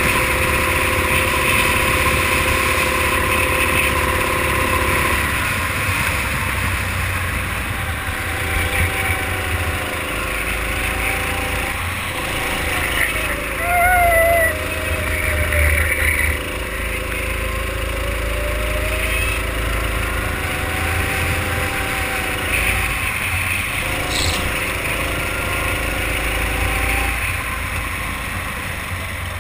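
Racing kart engine at speed, heard from onboard. Its note holds steady on the straight, drops about five seconds in as the kart slows for a corner, then climbs and falls again several times through the following corners, over a low rumbling of wind on the microphone.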